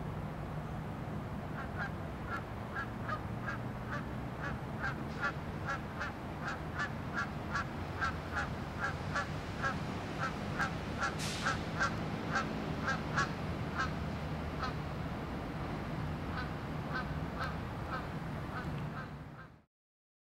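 A railroad bell ringing rapidly, about three strikes a second, over the steady low rumble of diesel locomotive engines; the sound cuts off near the end.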